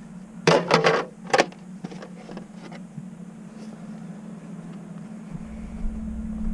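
A quick run of loud clunks and clatters as gear is handled and set down, followed by a few lighter knocks, over a steady low hum. A low rumble of wind on the microphone comes in near the end.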